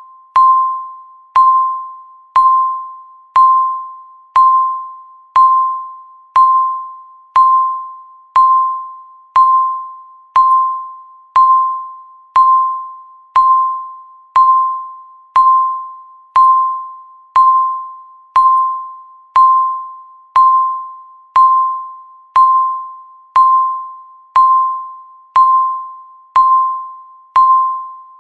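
Countdown timer beeping once a second: a single electronic tone near 1 kHz, each beep starting sharply and fading away before the next.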